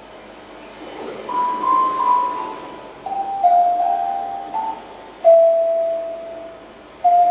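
Slow melody of single bell-like tones played back over loudspeakers, part of a recorded sound-installation piece. Each note starts sharply and rings away, about one every second or so.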